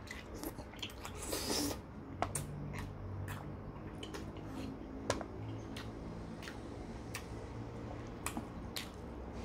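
Close-up eating sounds: chewing meat with wet mouth clicks and smacks, and a short sucking slurp about one and a half seconds in.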